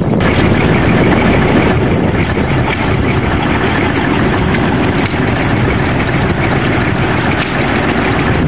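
Engines of old trucks and earthmoving machinery running steadily.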